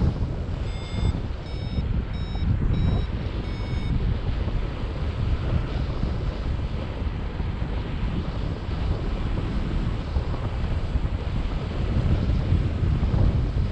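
Wind rushing and buffeting over the microphone of a paraglider in flight. About five short electronic beeps from a flight variometer sound in the first four seconds; the variometer beeps to signal that the glider is climbing.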